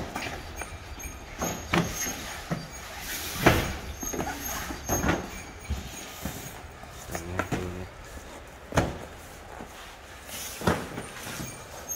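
Cardboard cartons of instant noodles thudding as they are set down and stacked on the truck bed and on one another, a dull knock every second or two, the loudest about three and a half seconds in.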